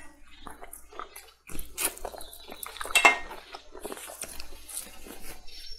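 Close-miked eating: biting and chewing of braised meat, with scattered sharp clicks and clinks of utensils against a dish, the loudest about three seconds in.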